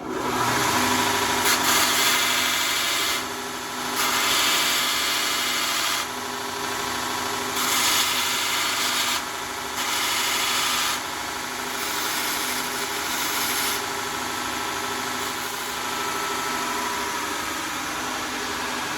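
Electric power sander switched on and running steadily, with a rough grinding hiss coming and going in stretches of a few seconds as the ends of a 1/8-inch steel welding-wire pin are pressed to the abrasive to round them over. The grinding eases after about 14 seconds while the motor runs on.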